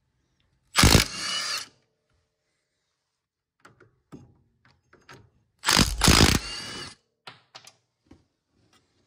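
Power impact wrench run in two short bursts of about a second each, backing out the axle-tube mounting bolts, with light metal clicks between the bursts.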